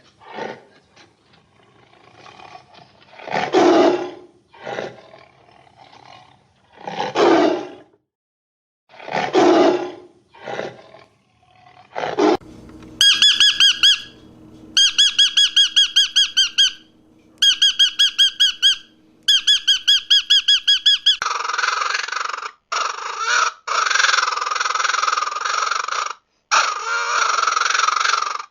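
A sequence of animal calls. First come several loud, roar-like calls about a second or two apart. Then, about twelve seconds in, come rapid trains of high-pitched squeaks. Near the end there is a harsh, drawn-out call broken by short gaps.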